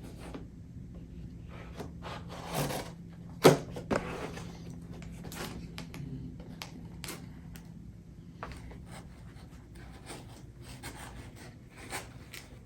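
Cardboard box being handled and opened: scattered scraping and rubbing, with a sharp knock about three and a half seconds in and a smaller one just after.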